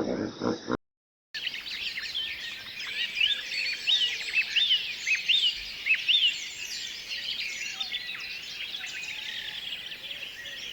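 Many small birds chirping together: a dense chorus of quick, high chirps, many rising then falling, over a light outdoor hiss. The first moment holds the tail of a lower animal call, cut off by a short silence about a second in, before the chirping starts.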